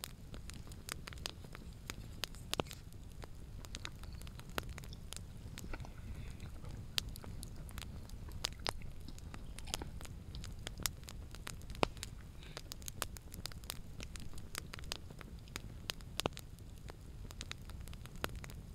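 Wood campfire crackling, with irregular sharp pops and snaps over a steady low rumble.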